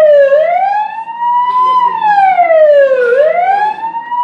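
Fire siren wailing, its pitch rising and falling smoothly in a slow cycle that peaks about every two and a half seconds: the alarm for a house on fire.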